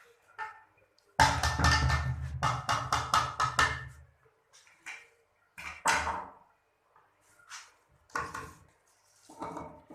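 Clatter of kitchen utensils: a quick run of knocks and scrapes for about three seconds, then several separate knocks.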